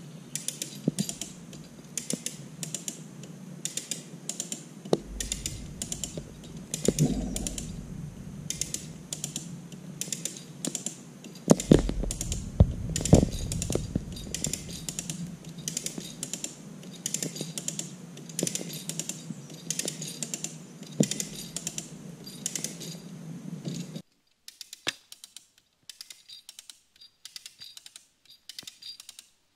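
Hand-operated Maasdam rope puller being cranked, its gripping mechanism clicking about twice a second as it draws the rope tight on a green stump. About halfway through come a few loud cracks with a low thud as the stump's roots give way. After a sudden drop in level near the end, fainter clicks go on.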